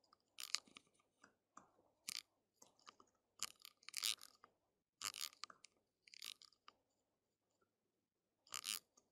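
Computer keyboard keys and mouse clicks tapping in short, irregular clusters while a URL is typed into a browser address bar.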